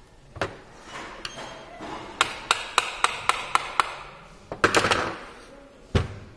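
Knocks and clicks from handling a brushless motor's finned aluminium housing: a run of sharp clicks, about four a second, then a short clatter, and a heavy thud near the end as the motor is stood on a wooden workbench.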